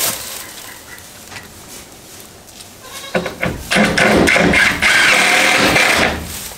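A goat bleating: one long, loud, wavering call starting about three seconds in and lasting about three seconds, after a few faint knocks.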